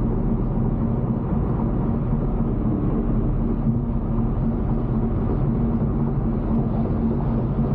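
Steady engine drone and tyre and road noise heard from inside a car's cabin while it is driven.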